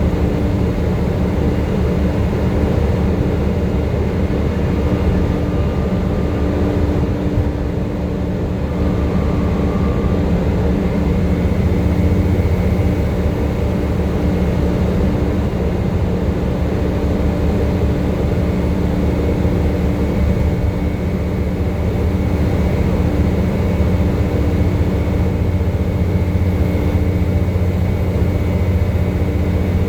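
Volvo B7TL bus's diesel engine running steadily under way, a continuous low drone with a steady whine over it; a faint higher whine comes in about a third of the way through.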